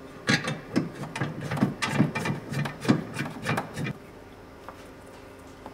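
Irregular knocks and scraping of a Yamaha Rhino's front seat mount being set in place and worked onto the frame, a few strokes a second, stopping about four seconds in.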